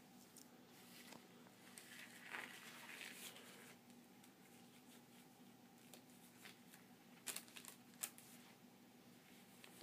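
Quiet handling sounds of sterile gloves being pulled on: faint rubbery rustling and crinkling of the paper glove wrapper, with a few short sharp snaps late on, over a steady low room hum.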